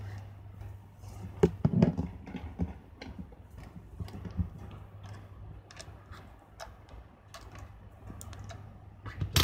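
Handling noise of a Canon EOS-1 film camera body turned over in gloved hands: scattered small knocks and clicks, loudest in a cluster about a second and a half in. A sharp click near the end, over a steady low hum.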